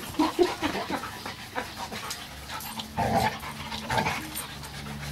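A pug and a chocolate Labrador play-wrestling: heavy panting and breathing with short, irregular scuffling noises, a little rougher about three and four seconds in.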